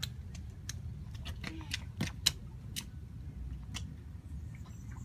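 A toddler's rubber rain boots stepping and stamping on wet pavement in shallow puddles: a string of light, irregular taps and clicks, the loudest about two seconds in, over a steady low rumble.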